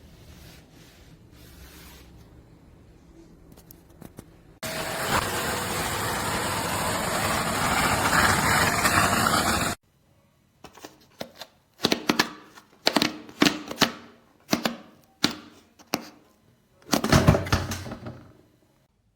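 Wet and dry vacuum cleaner running loud and steady for about five seconds, starting and stopping abruptly, followed by a run of about eight irregular knocks and clatters.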